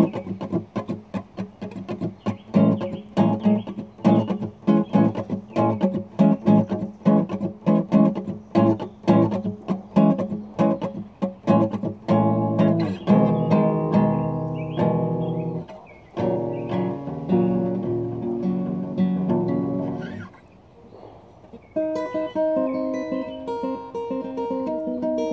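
Solo acoustic guitar: quick rhythmic strumming for the first half, then held ringing chords, a brief pause about twenty seconds in, and higher single notes ringing near the end.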